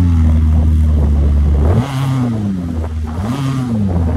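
VW Kombi van's engine revving under load as the van churns through soft sand with its wheels spinning: a steady note at first, then two swells that rise and fall in pitch. The owner blames its bogging in sand on oil from a leaking rear main seal getting onto the clutch.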